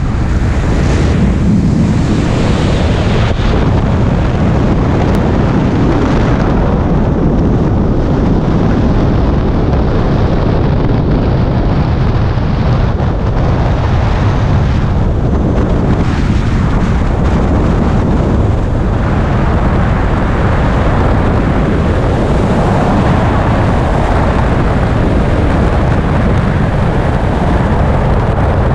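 Loud, steady rush of freefall wind buffeting the camera's microphone during a skydive.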